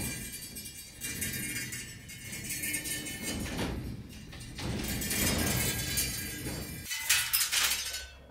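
Laundry being taken down from a metal folding drying rack: fabric rustling in uneven swells with light clinks and rattles of the rack, the loudest rattle near the end.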